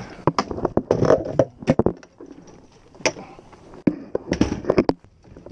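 A run of irregular sharp taps and knocks, bunched in two clusters with a quieter gap between them.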